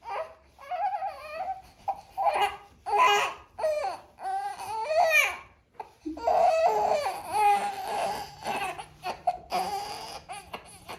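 Infant vocalizing in short high-pitched bursts, then a longer unbroken stretch about six seconds in.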